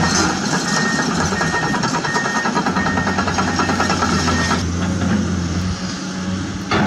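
Dump truck engine running with a reversing beeper sounding a steady series of beeps. The beeps stop a bit past halfway, and the engine note then settles lower.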